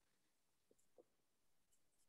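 Near silence, with two very faint short clicks about a second in.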